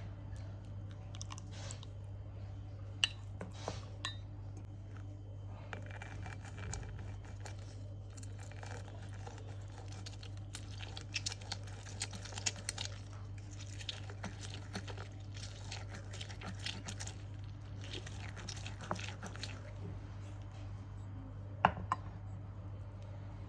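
Scattered small clicks, taps and rustling of ingredients and kitchen utensils being handled, over a steady low hum. Two sharper clicks come near the end.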